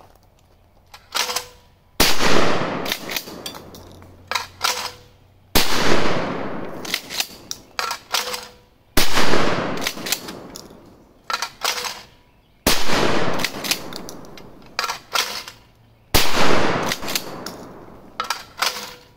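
A pump-action shotgun, a Tristar Cobra, fires five shots at thrown clay targets, about three and a half seconds apart, each one loud and fading out over a second or two. Between the shots come shorter, sharper clacks from the pump slide being worked and the automatic clay thrower releasing.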